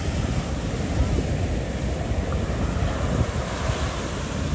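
Small surf breaking and washing up a sandy beach, with gusty wind buffeting the microphone.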